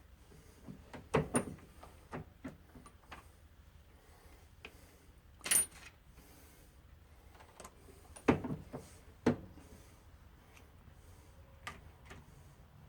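Irregular metallic clunks and clicks from working a reloading press while full-length sizing and priming brass rifle cases, about seven sharp knocks in all.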